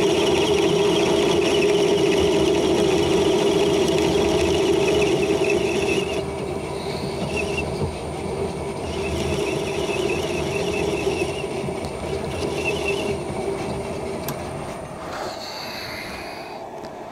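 10-inch Atlas metal lathe running, turning down the head of a steel carriage bolt held in its three-jaw chuck, with a high warbling squeal that comes and goes. The running gets quieter about six seconds in, and the lathe winds down near the end.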